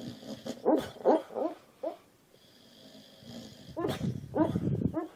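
A dog yipping and whimpering in its sleep while dreaming: short calls that glide up and down in pitch, in two bouts, one just after the start and one about four seconds in.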